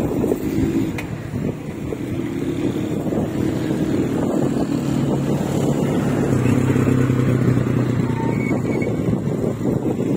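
Wind rushing over the microphone at cycling speed, with a motor vehicle's engine running steadily nearby from about two seconds in until near the end.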